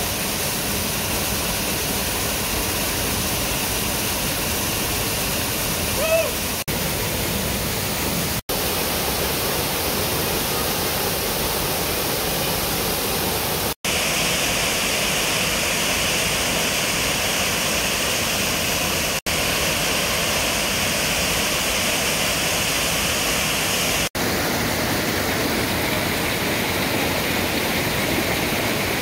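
Waterfall pouring over a rock ledge into a pool: a steady rush of falling water, cut off for an instant several times. About six seconds in, a person gives one short cry.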